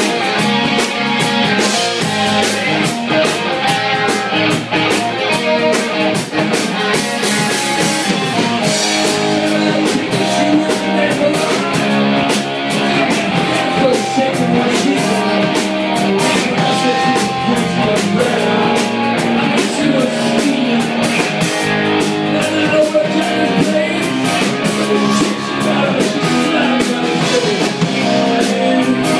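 Live rock band playing loud: electric guitar and drum kit, with a man singing into a microphone.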